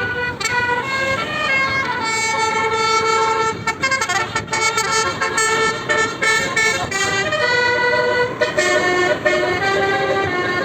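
A bus's Basuri multi-tone 'telolet' horn played at length as a tune: several horn tones sound together, shifting from note to note, with long held notes and a run of short quick toots near the middle.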